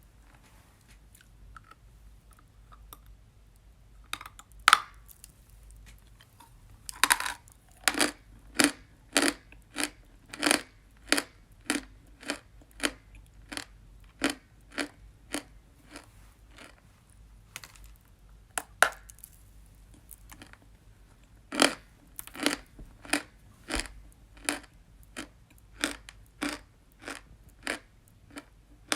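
A person biting into chalk and chewing it with crisp, regular crunches, about one to two a second. Loud bites break off fresh pieces about five and seven seconds in and again just past the middle, each followed by a run of chewing.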